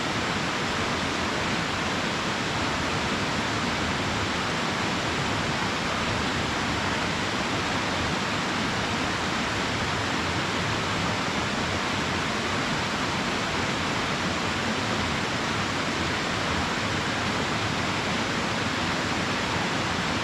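Waterfall pouring into a pool: a steady, even rush of falling water with no breaks.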